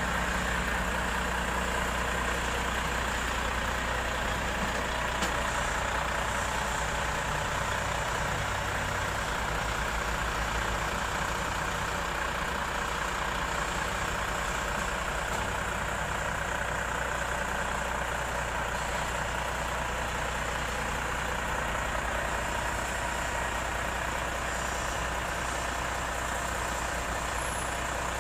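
Volvo FM prime mover's diesel engine idling steadily.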